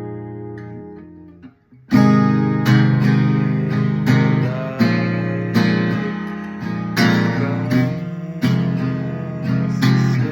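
Acoustic guitar capoed at the first fret: a chord rings and fades away, then about two seconds in a steady strummed chord pattern begins and carries on.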